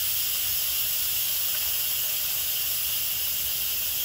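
Instant Pot pressure cooker venting steam through its release valve during a quick release after pressure cooking: a steady, high-pitched hiss.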